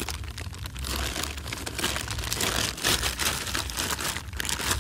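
Plastic bag crinkling and dry rice straw rustling as they are handled close to the microphone: an irregular run of crackles, over a steady low rumble.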